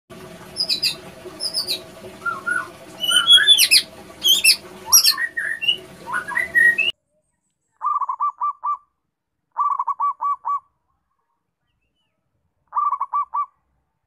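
A busy stretch of whistled chirps and sweeping glides over a steady hum, cutting off about seven seconds in. Then a zebra dove (perkutut) cooing: three short phrases of about five rapid staccato notes each, about a second long, the kind of lure song played to train young perkutut to sing.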